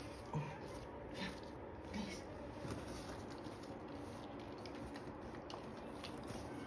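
Quiet handling sounds in a whelping box: gloved hands rustling towels and paper around a newborn puppy, with soft wet squishing. A few faint short sounds come in the first two seconds.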